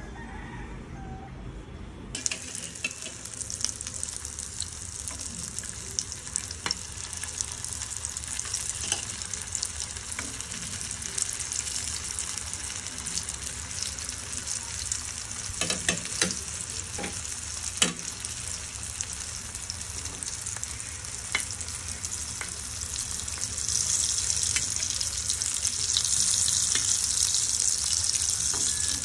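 Chicken kabab patties frying in hot oil: a steady sizzle with scattered sharp pops, growing louder near the end. The sizzle cuts in abruptly about two seconds in, after a low hum.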